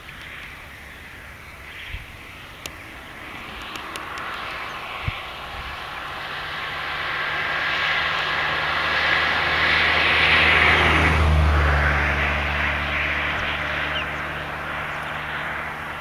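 Airplane flying overhead: its engine noise swells over several seconds, peaks about two-thirds of the way through, drops in pitch as it passes, then slowly fades.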